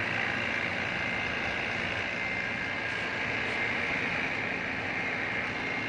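Steady machinery noise at a constant level, with a thin, unchanging high whine running through it.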